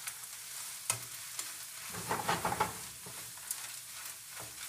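Sausage, peppers, onions and uncooked great northern beans sizzling in a nonstick frying pan while a spatula stirs them. The stirring gives scrapes and clicks against the pan, with a busier spell of stirring about two seconds in.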